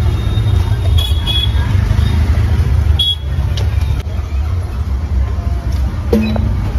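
Steady low rumble of street traffic, with a few light knocks and clicks over it.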